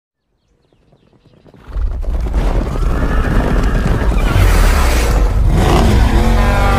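Channel-intro sound effects: silence for about a second and a half, then a loud, deep rumble of galloping horses, with a horse whinnying near the end.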